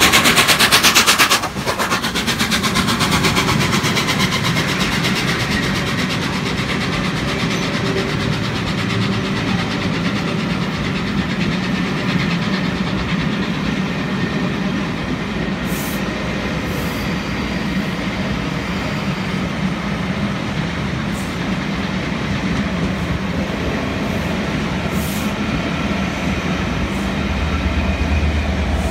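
Three-cylinder A1 Pacific steam locomotive 60163 Tornado working hard, its rapid exhaust beats loudest for the first second and a half and then cutting off suddenly as it passes beneath. Pullman coaches then roll past with a steady rumble and a few wheel clicks over rail joints. Near the end the deeper rumble of another train rises on the adjacent track.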